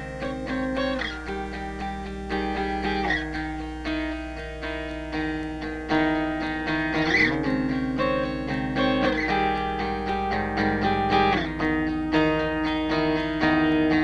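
Instrumental background music led by guitar, with plucked notes and chords.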